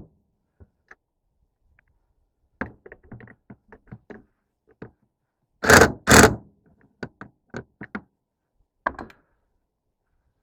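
Handling noises from boat light fixtures being worked on: scattered light clicks and taps, two loud knocks in quick succession about six seconds in, and one more knock near the end.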